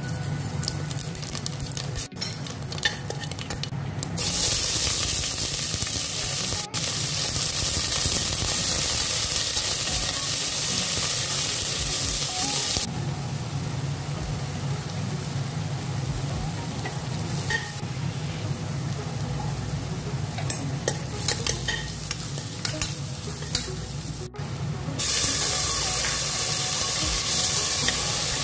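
Sliced onions and garlic sizzling in hot oil in a stainless steel pressure cooker pot while a spatula stirs them, with small scraping clicks against the metal. The sizzle jumps suddenly louder about four seconds in and again near the end.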